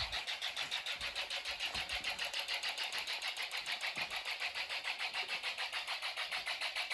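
Homemade Snap Circuits fire alarm horns sounding in very rapid pulses, about five a second, on a fast 'hyperspeed' pattern.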